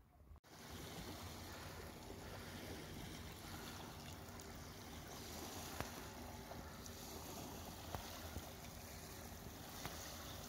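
Small waves lapping on a pebble lakeshore, a steady faint wash with a few light splashes.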